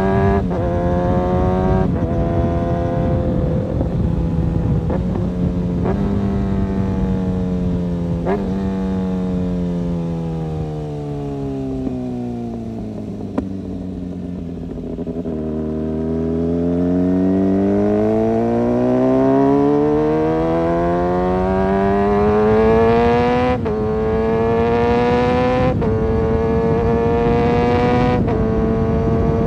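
Kawasaki ZX-6R inline-four motorcycle engine pulling through the gears, its pitch dropping sharply at each upshift. About a third of the way in the revs fall away smoothly as the bike slows. It then accelerates again with three more quick upshifts near the end.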